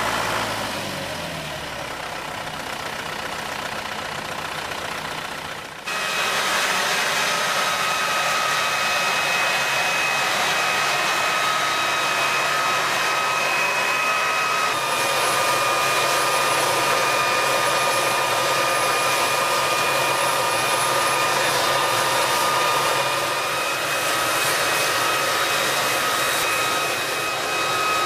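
Tractor engine running, its pitch dropping over the first couple of seconds. From about six seconds in, a pneumatic garlic planter works in the field: the steady high whine of its seed-metering fan rides over the engine.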